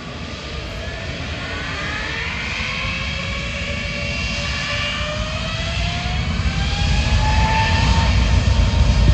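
Jet airliner's turbofan engines spooling up to full takeoff thrust as the takeoff roll begins: several whines rising in pitch over a low rumble, growing steadily louder.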